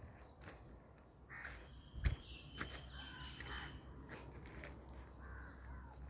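Crows cawing repeatedly, with a single sharp knock about two seconds in over a low steady hum.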